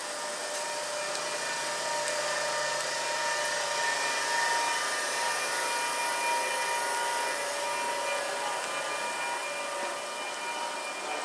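Kintetsu limited express electric train running along the platform: steady rolling noise of wheels on rail with a steady electric motor whine, loudest about halfway through.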